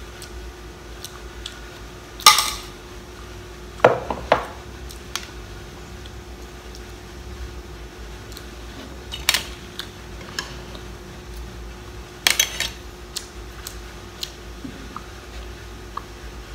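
Hard crab-claw shells being handled and cracked over a plate: a few sharp clacks and clinks of shell against the dish, with softer clicks between, over a faint steady hum.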